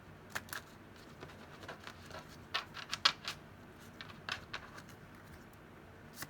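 Tarot cards being shuffled and handled, a run of short, irregular snaps and flicks of card stock.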